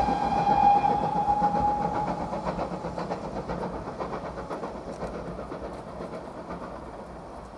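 Steam locomotive whistle held for about the first two seconds over the rumble of a steam train moving away, the rumble fading steadily.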